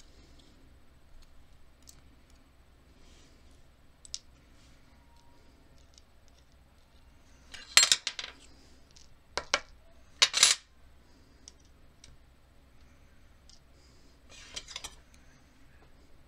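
Small metal objects, a key and lockpicking tools, clinking against a hard tabletop as they are picked up and set down. There are short bursts of sharp clinks about eight and ten seconds in, and a fainter clatter near the end.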